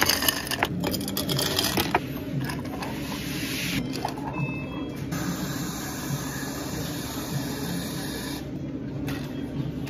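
Ice clattering into glass jars from a metal scoop, then a steady hiss of chocolate milk tea being poured over the ice, all over a constant low hum of café equipment.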